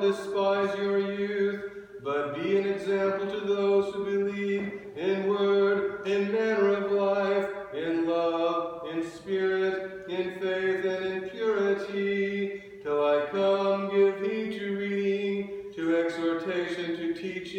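A man chanting the Epistle reading in English on a near-monotone reciting pitch, in long sung phrases broken by short pauses for breath.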